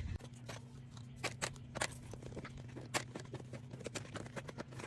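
Light, irregular clicks and taps of small plastic fidget toys being handled and put away, a few sharper knocks among them.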